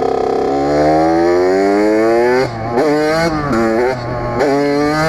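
Kawasaki KX80 80cc two-stroke dirt bike engine accelerating in one long rising rev for about two seconds. The revs then drop and swing up and down in several short blips as the rider works the throttle.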